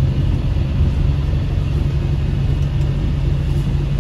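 Volvo B5TL double-decker bus on the move, heard from inside the passenger cabin: a steady low rumble of its diesel engine mixed with road noise.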